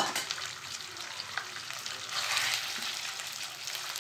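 Marinated chicken slices sizzling in hot oil in a non-stick wok while a wooden spatula stirs them. The sizzle grows louder about halfway through.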